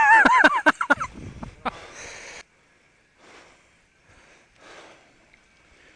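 A man laughing for about a second, in quick rising and falling bursts, followed by a short hiss that cuts off suddenly. Then come a few faint, soft breaths.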